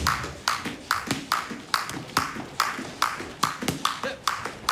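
Jump rope skipping: the rope slaps the floor in an even rhythm, about two and a half slaps a second, each with a short swish.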